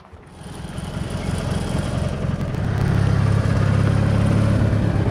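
Engine of an orange eight-wheel Argo amphibious ATV running as it drives past close by, growing louder over the first few seconds and then holding steady.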